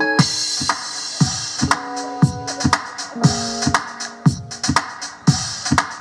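Electronic dance beat from a drum machine starting suddenly: a deep kick about twice a second with hi-hats, under held synthesizer and keyboard chords.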